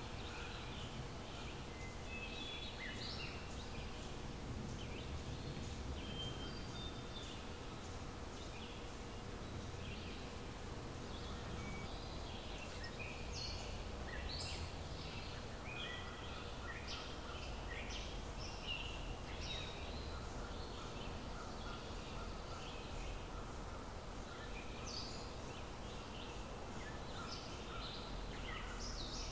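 Several songbirds chirping and singing almost without pause, over a low steady rumble and a faint steady hum.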